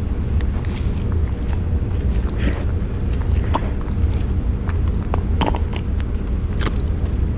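Dog gnawing and chewing on a beef knuckle bone, with irregular crunches and clicks of teeth on bone.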